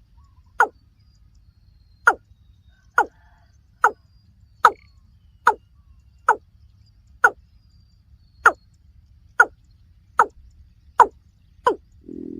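Watercock calling: a short note that drops in pitch, repeated about once a second, thirteen times.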